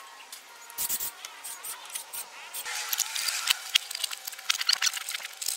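Irregular clicking and scraping of hand tools and metal car parts being worked by hand, as the turbo air pipe and precat are fitted.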